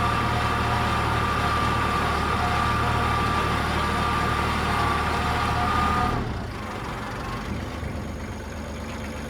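A machine running steadily with a low hum and a high whine; the whine stops about six seconds in, and a quieter hum carries on.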